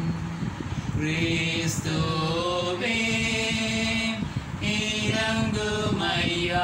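A man's voice singing unaccompanied in a slow chant, holding long notes and moving between them in steps.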